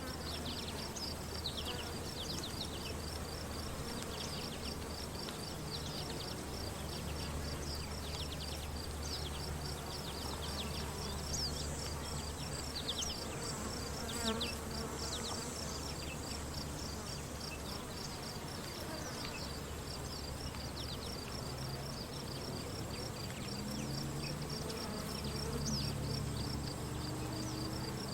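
Outdoor field ambience full of insects: a steady, rapidly pulsing high chirp like a cricket's runs throughout, and flying insects buzz past, loudest near the end. Short falling chirps come through now and then over a low steady hum.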